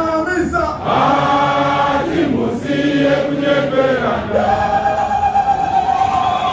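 A large crowd singing a chant together in unison, phrase by phrase, ending on a long held note.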